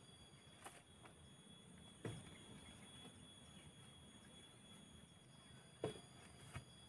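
Near silence broken by four light knocks of wooden poles being set against a stick shelter frame, the loudest about six seconds in. Faint steady high tones run underneath.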